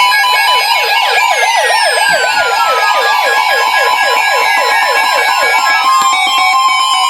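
Electronic siren tones: a fast yelp of about five short falling sweeps a second, with slower wails gliding down in pitch, over steady beeping alarm tones. The yelp stops near the end while a steady tone and a last falling glide carry on.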